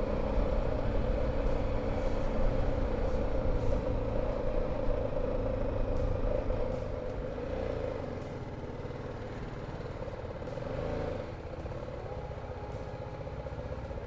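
Riding a motorcycle through dense city traffic: steady engine and traffic noise that grows quieter about eight seconds in.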